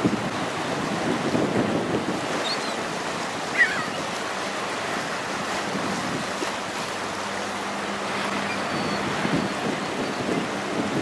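Water rushing and splashing along the hull of a passing general cargo ship, with wind buffeting the microphone. There is a brief thump about three and a half seconds in, and a faint low hum joins for a few seconds past the middle.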